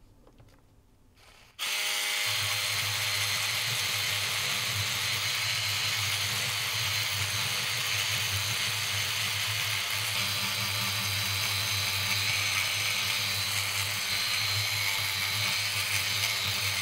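Sonic Scrubber electric scrubbing brush starting about a second and a half in, then buzzing steadily as its bristles scrub burnt-on residue off a circuit board.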